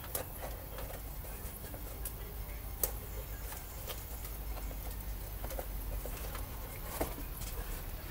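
Tape-covered cardboard handled and pressed by hand, giving scattered light clicks and crinkles, the sharpest a little under 3 s in and about 7 s in, over a steady low hum.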